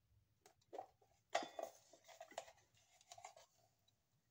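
Faint scraping and rustling of kitchen things being handled, in several short goes with pauses between.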